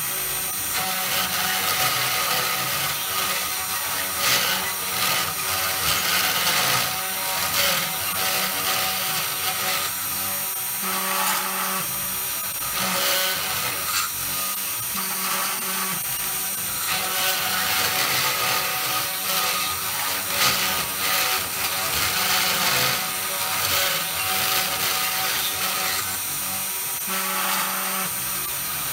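Small hobby CNC router's spindle and end mill cutting into a painted wooden board: a steady high whine with scratchy cutting noise that swells and eases every few seconds as the tool moves along the letters.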